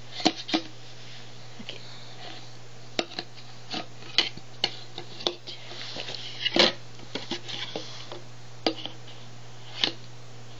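Plastic stacking rings knocking against the toy's post and base as a ring is worked onto the post: irregular clicks and taps, over a dozen, the loudest about six and a half seconds in.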